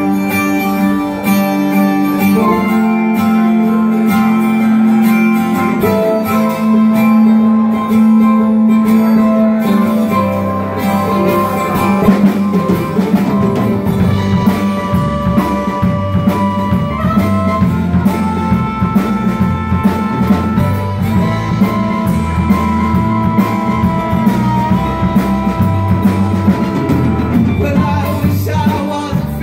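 A live blues-rock band playing with acoustic guitar, electric bass, keyboard and drums, with harmonica playing long held, bending notes. The drums and bass beat comes in strongly about ten seconds in.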